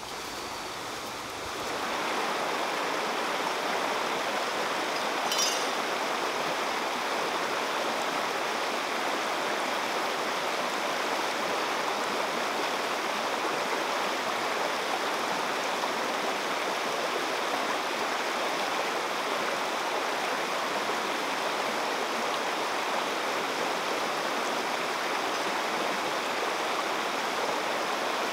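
Fast, shallow stream rushing over rocks: a steady wash of white water that comes in about two seconds in and holds level, with a single short high tick about five seconds in.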